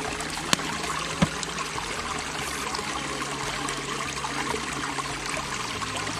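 A stream running steadily, with two sharp pops from a small pine kindling fire that is just catching, about half a second and a second in.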